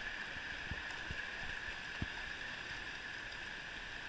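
Shallow river water rushing steadily over a rocky riffle, with a few faint low knocks in the first two seconds.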